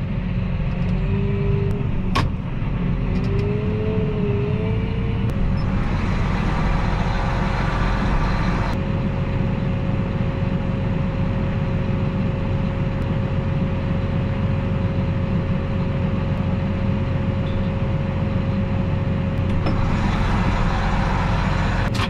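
John Deere 8R tractor's diesel engine idling steadily, heard inside the closed cab. A steady whine comes in about five seconds in, and a brief hiss rises twice.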